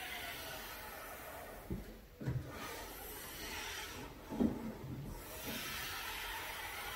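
Kia Soul hood being lowered and lifted again by hand on its gas struts, which have just been wiped with WD-40, with a few quiet knocks as it moves.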